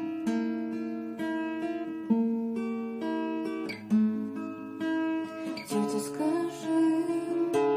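Acoustic guitar playing the opening of a song, with picked notes and chords ringing one after another at an unhurried pace.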